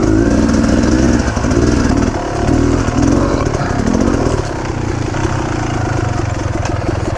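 Dirt bike engine running on a trail ride, the throttle opening and closing so its pitch rises and falls over and over, steadier and a little quieter after about five seconds.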